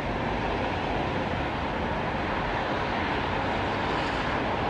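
Steady noise of highway traffic on wet pavement, tyre noise and engines blended with rain into one even wash.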